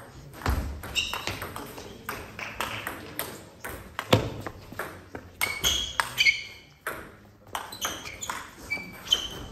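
Table tennis rally: the celluloid-type plastic ball clicking off rackets and table in quick succession, with short squeaks of players' shoes on the wooden hall floor between shots.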